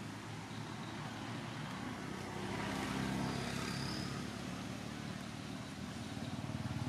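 A motor vehicle's engine hum, swelling about two to four seconds in and then easing, over steady outdoor background noise.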